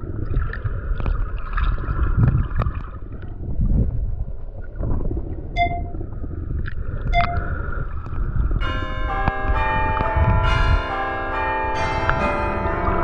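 Low rumbling noise with a couple of short clicks. Then, about two-thirds of the way in, bell-like chimes start ringing, many overlapping tones at once.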